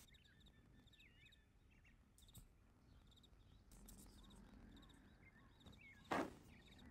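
Near silence: quiet room tone with faint birds chirping in the background. A single brief sharp noise comes about six seconds in.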